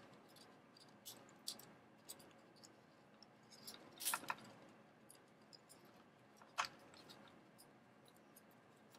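Faint handling noise from small plastic and metal model-kit parts as a wire is threaded through a panel: scattered light clicks and taps, the loudest a quick double click about four seconds in and a single click about two-thirds of the way through.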